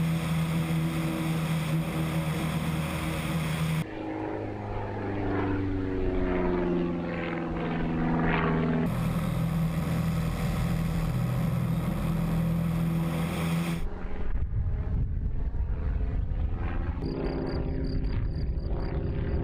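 Vintage propeller airplane engine droning steadily, with a pass-by in the middle where the pitch falls as the plane goes past; the sound changes abruptly several times.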